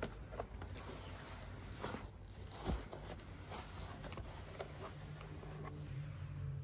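Kittens scrambling in and on a cardboard box: scattered scratches, taps and rustles of claws and paws on cardboard, with one louder knock midway.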